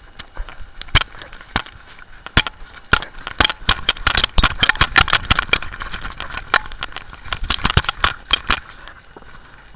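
Handling noise from a camera worn by a Jack Russell terrier. Its housing knocks, rattles and scrapes as the dog moves, in a dense run of irregular clicks and knocks that is busiest in the middle.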